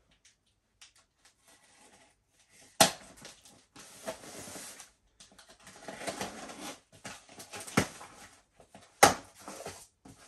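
Small cardboard box being handled and cut open with a knife. Starting about three seconds in, there are stretches of scraping and rustling cardboard and tape, with three sharp knocks, the loudest near the end.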